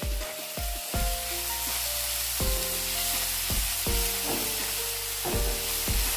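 Diced pineapple sizzling in hot ghee in a nonstick pan, a steady hiss of frying, with a silicone spatula stirring and scraping the pieces partway through.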